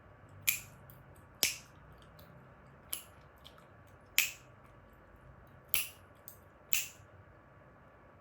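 Chewing gum snapping and cracking in the mouth: six sharp pops spaced about a second apart, with a couple of fainter clicks between them, over quiet mouth movement.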